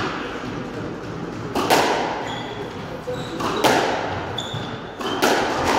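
Squash ball being struck and hitting the court walls: three loud hits about two seconds apart, each ringing in the enclosed court, with brief high squeaks of court shoes on the wooden floor.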